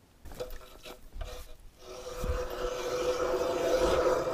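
Hand ice auger cutting through ice: a few short scrapes, then a steady rasping grind that grows louder as the blades bite in.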